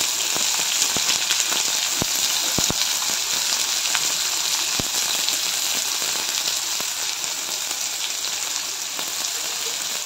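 Chopped onion sizzling in hot oil in a kadai: a steady hiss with scattered crackling pops, easing slightly toward the end.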